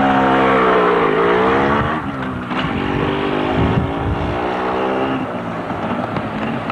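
Motorcycle engine pulling away and accelerating, its pitch dipping and rising in the first two seconds, then running steadier as it grows fainter riding off down the street.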